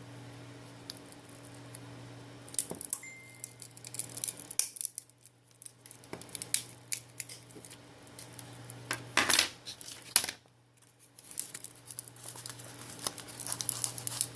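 A tool clicking, scraping and crackling against a phone's frame as the heated, glued LCD is pried off, in a run of small irregular ticks with a louder scrape about nine seconds in. A steady low hum runs underneath.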